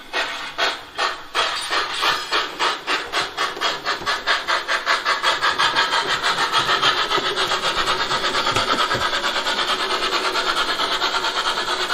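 Steam-exhaust chuffs from the ESU LokSound 5 sound decoder in a Gauge 1 brass model of a Prussian T3 (class 89) tank locomotive, played through the model's speaker as it runs. The chuffs start slow and quicken steadily into a rapid, even beat as the locomotive gathers speed.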